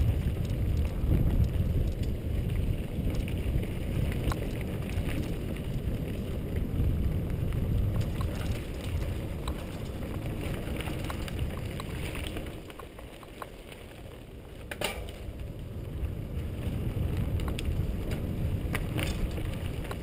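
Mountain bike riding on a dirt trail heard from a helmet camera: wind rumbling on the microphone and tyres rolling over dirt, with scattered clicks and rattles from the bike over bumps. The rumble eases for a couple of seconds a little past the middle, then picks back up with a sharp click.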